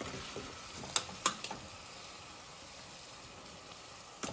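Cooked sliced green fava beans being tipped from a pot into a hot saucepan of chermoula, with a steady low sizzle from the pan and sharp clinks of a metal spoon against the pot, two about a second in and one near the end.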